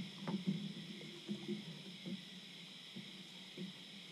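Scattered light knocks, taps and rustling from people moving and handling gear in a small boat, over a steady high-pitched hiss.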